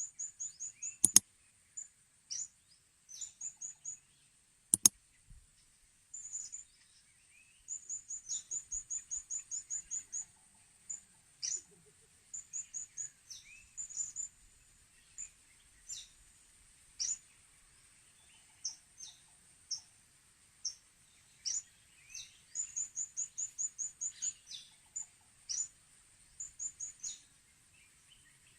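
Blue-crowned hanging parrots (serindit) calling: thin, high-pitched chirps, some in quick runs of about five a second, others as single falling notes. A faint steady high hiss runs under them, and two sharp clicks sound in the first five seconds.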